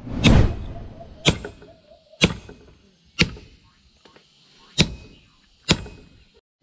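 Hand hammer striking a red-hot bolo (machete) blank on the anvil: six sharp metallic blows about a second apart, each ringing briefly, the first the loudest.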